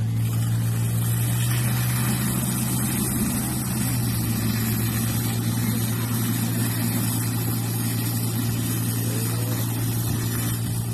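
Portable fire pump engine running steadily under load, feeding the attack hoses, with the steady hiss of the water jets spraying from the nozzles.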